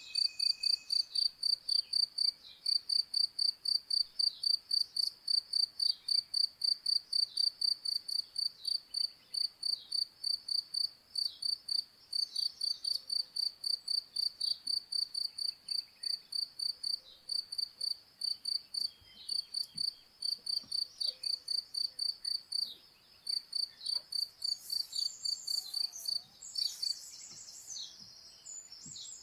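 A cricket chirping steadily at about three chirps a second, with short bird calls and chirps scattered over it, busiest near the end.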